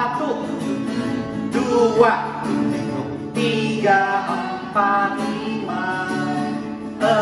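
A man singing a children's Sunday school song over guitar-backed music, counting the numbers out as separate sung notes about a second apart.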